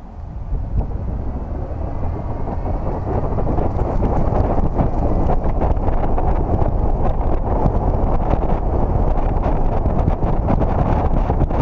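Wind buffeting the microphone of a camera mounted on the outside of a moving car, over a low road and engine rumble. It grows louder over the first few seconds, then holds steady.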